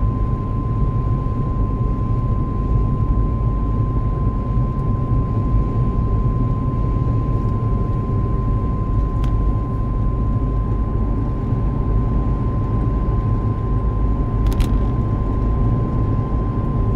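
Mitsubishi Pajero on the move at about 70 km/h, with a loud whine holding one steady pitch over the low rumble of the road and drivetrain.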